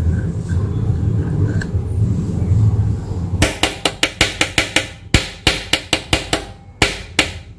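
Metal spoon clinking against a stainless steel bowl, a quick run of sharp strikes at about five a second, starting about three seconds in and stopping just before the end. Before it, a low steady rumble.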